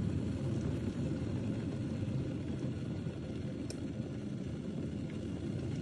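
Electric kettle with the water just short of the boil: a steady low rumble.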